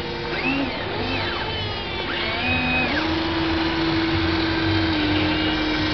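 Small electric gear motors of a radio-controlled toy excavator whining as the boom and bucket move. The pitch glides up and down as the motors start and stop, then settles into a steady whine about halfway through.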